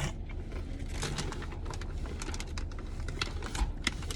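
Scattered small clicks and crinkles of food packaging being handled and food being eaten, over a low steady rumble inside a car.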